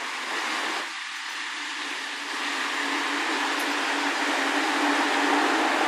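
Class 158 diesel multiple unit standing at the platform, its underfloor diesel engine idling: a steady hum and hiss that grows louder over the last few seconds.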